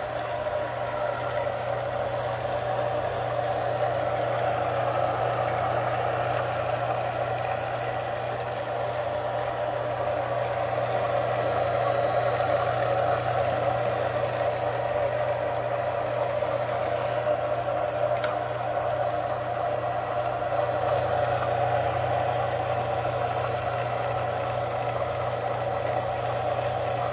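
Homemade mini wood lathe running free with no cut: a small electric motor salvaged from a water purifier drives the spindle through a belt and pulleys. It makes a steady low hum with a higher whir over it.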